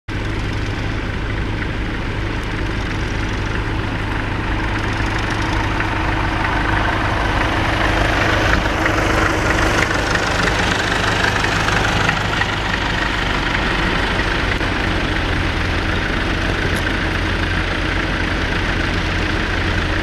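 Tractor engine running steadily, louder toward the middle as a Massey Ferguson 65 passes close by, then settling back.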